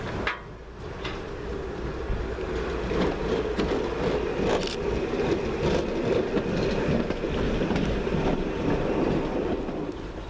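Class 139 Parry People Mover railcar arriving and running in close past, with a steady hum and scattered sharp clicks and knocks from its wheels on the track.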